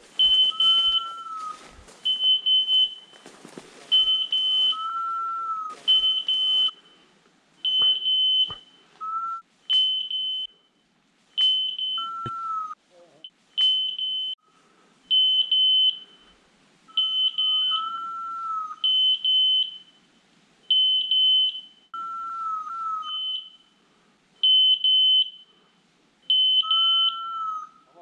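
Electronic beeper collars on hunting dogs sounding: short high beeps in pairs and threes about every second. A lower, longer tone sounds every few seconds.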